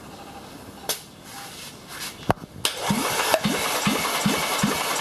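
A 1.8-litre turbo four-cylinder Audi CDHA engine, plugs out and a compression gauge fitted, is cranked over. The cranking starts a little past halfway, with an even beat of about two and a half pulses a second as each piston comes up on compression. Two sharp clicks come before it. This is the compression test of cylinder one, which reads 14.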